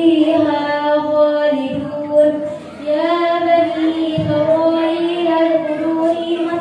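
A girl's melodic Qur'anic recitation in tartil style, long held notes sung with slow turns in pitch, with a short pause about two and a half seconds in.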